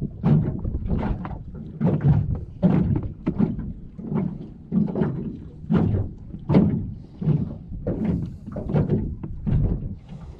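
Small wind-driven waves slapping against the hull of a small fishing boat in a string of uneven hollow thunks, about two a second.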